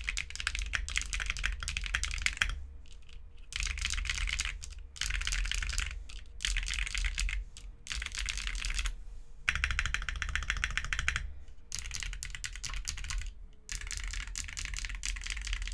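Typing on a custom mechanical keyboard with Strawberry Milk tactile switches, a carbon fibre plate and foam-dampened case: fast runs of keystrokes in bursts of a second or two, with short pauses between them.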